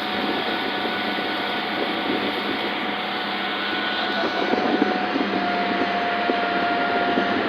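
Boat motor running steadily under way, with a steady whine that grows stronger about five seconds in.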